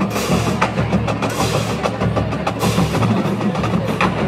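College marching band drumline playing a percussion cadence: quick sharp clicks and rim hits over snare and bass drum strokes.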